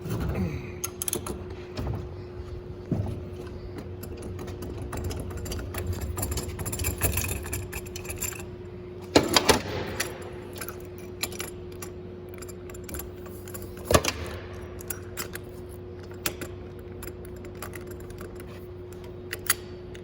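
A/C hose crimp tool being worked to crimp a fitting onto the hose: scattered metal clicks and clinks, with two louder sharp clacks about nine and fourteen seconds in, over a steady hum.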